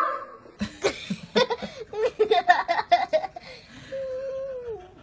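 Laughter in short quick bursts for about the first three seconds, then one long held call near the end that falls away.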